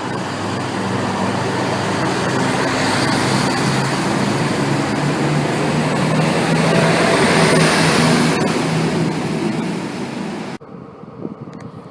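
A train passing close by: rushing wheel and running noise with a steady low drone, swelling to its loudest about three-quarters of the way through, then cutting off suddenly.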